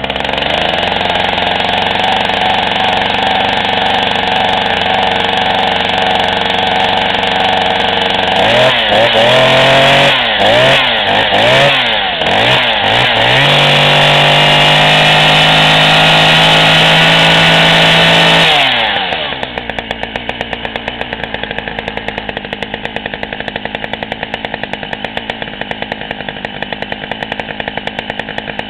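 McCulloch FR4618 two-stroke chainsaw running with the chain in free air. It runs steadily for about eight seconds, is blipped up and down several times, and is held at full throttle for about five seconds. At about nineteen seconds it drops back to a lower, pulsing idle.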